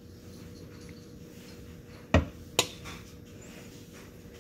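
A metal spoon clinks twice, about half a second apart, a little past halfway, then once more softly, as yogurt is spooned into glass cups. A faint steady hum sits underneath.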